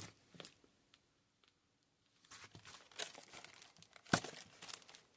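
Shipping packaging being handled and torn open: faint crinkling and tearing starting about two seconds in, with one sharp snap about four seconds in.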